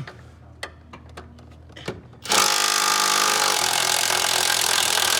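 A power tool starts about two seconds in and runs for about three and a half seconds on a bolt, loosening it. It begins with a pitched whine that turns into a dense hiss.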